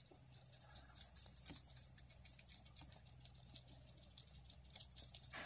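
Hairless guinea pigs nibbling a cucumber slice held out by hand: faint, crisp, irregular crunching clicks of chewing.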